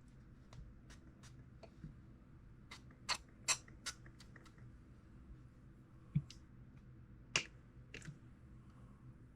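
Faint, scattered clicks and light taps of small pistol parts and cleaning tools being handled while the feed ramp is cleaned. The sharpest come about three seconds in and again around six to seven seconds in.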